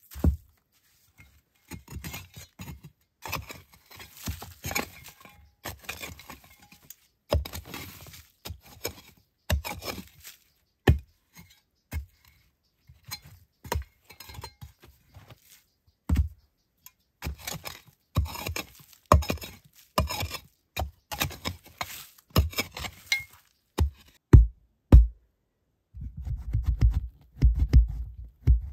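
Hand work with stone and rubble: scattered knocks, clinks and short scrapes, stopping and starting. Near the end a low, pulsing music beat comes in.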